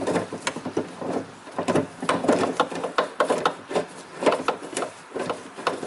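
Socket wrench turning a bolt inside a car door, with irregular metallic clicks and scraping several times a second as the bolt is worked loose.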